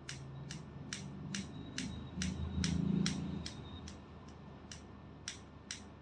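Hairdressing scissors snipping hair in a steady run of crisp snips, about two a second, that stops shortly before the end. A low background hum swells under the snips in the middle.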